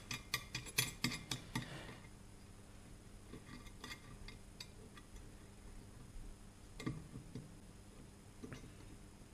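Small metal parts of a Lambretta TV175 disc brake hub clicking lightly as a screw is wound in by hand: a quick run of light clicks in the first two seconds, then a few scattered ticks.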